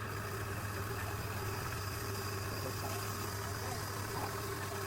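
Wood lathe motor running steadily with an even low hum.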